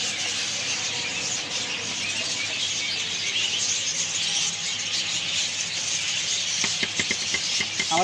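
Steady background hiss, with a few light clicks or taps shortly before the end.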